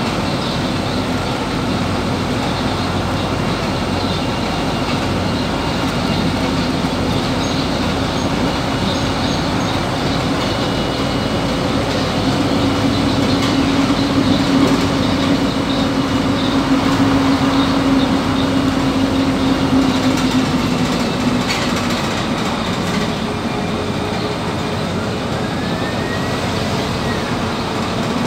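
Cabin noise of a PAZ 320414-14 city bus under way: steady engine and road noise. A low engine tone grows stronger about halfway through, then fades again.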